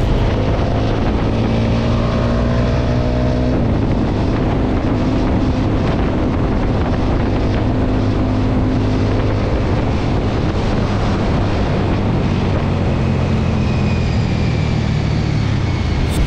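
Small two-wheeler engine running under way, its pitch climbing for the first few seconds and then holding steady. Wind buffets the microphone throughout.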